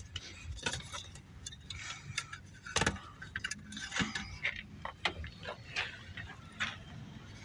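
Irregular clicks, taps and small rattles of hard parts being handled and worked loose by hand, as a part is taken out of a car.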